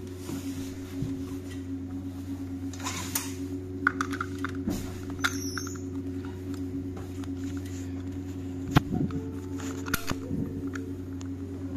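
Steady hum of the Volvo 7900 Hybrid bus interior, with a few sharp clicks and knocks from a passenger seatbelt buckle and strap being handled, the loudest about four seconds in and again near nine seconds.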